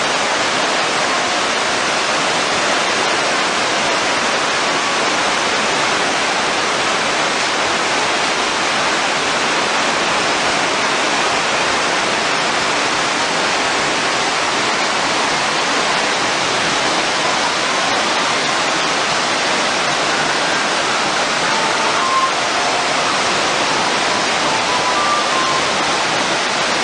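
Ravana Falls, a 25 m waterfall, pouring steadily: a dense, even rush of falling water with no let-up.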